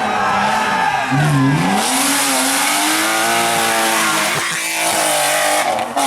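Rally car engine at high revs on a special stage: the revs drop sharply about a second in, then climb steadily, with a brief break near the middle as it shifts gear.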